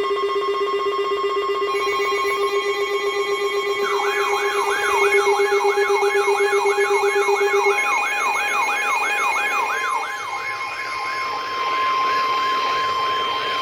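Emergency alert tones: a steady, high, unbroken alarm tone like the NOAA Weather Radio warning alarm, with a lower buzzing tone beneath it for the first half. About four seconds in, an electronic siren joins them, rising in quick repeated sweeps about two and a half times a second.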